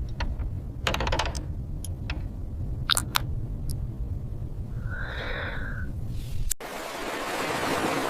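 Scattered sharp clicks and light taps of small objects being handled, over a steady low hum; a short tone sounds about five seconds in, then the hum cuts off suddenly and an even hiss follows.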